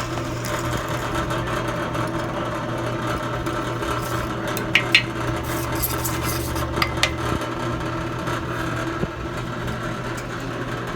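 An engine idling steadily with an even low hum, with a few brief light metallic clinks about five and seven seconds in.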